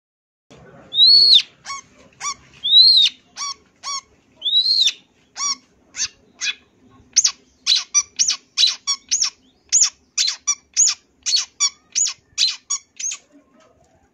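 Long-tailed shrike (cendet) singing. It opens with three loud arching notes that rise and fall, mixed with short sharp notes, then breaks into a fast run of short sharp notes, about three a second, that stops shortly before the end.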